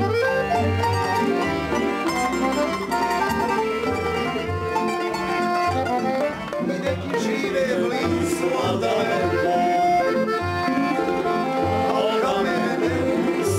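A tamburica folk band playing a lively tune: plucked tamburicas and a Dallapé piano accordion over regular bass notes.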